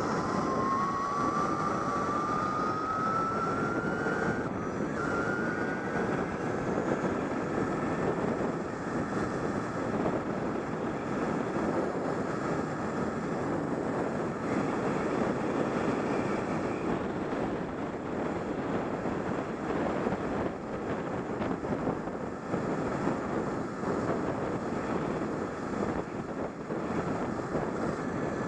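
Wind rushing over a helmet-mounted camera's microphone on a moving electric bike. Under the wind, the bike's electric motor whines, rising in pitch over the first several seconds as the bike gathers speed and then holding steady.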